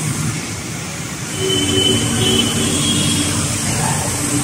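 Truck engine running close by amid road traffic noise, growing louder about a second in.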